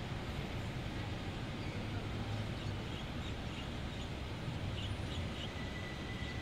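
Steady low rumble of distant city traffic and rail, with short high bird chirps from about halfway through and a thin steady whistling tone coming in near the end.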